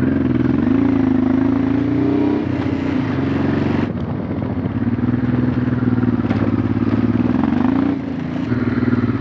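Honda Transalp motorcycle engine running under way, its note rising and falling with the throttle, with a dip about four seconds in and again near eight seconds.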